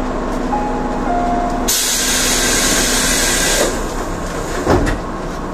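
Stopped electric commuter train with a steady hum, then a loud hiss of compressed air that starts suddenly and lasts about two seconds, and a single thud near the end.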